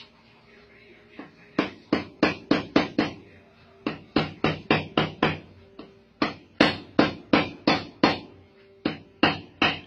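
A metal tool knocking rapidly against a hollow piggy bank to crack it open, in quick runs of sharp strikes about four a second with short pauses between, each strike ringing briefly off the hollow body.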